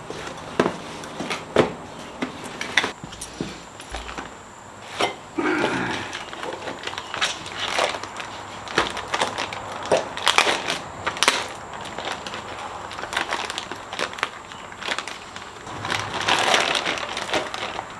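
Packaging of a new K&N air intake kit being opened and handled: cardboard and plastic crinkling and rustling, with irregular clicks and small knocks.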